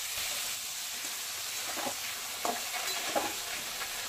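Potato and radish chunks frying in hot oil with cumin seeds in a metal kadai: a steady sizzle, with a few short scrapes or knocks of a spatula as they are stirred.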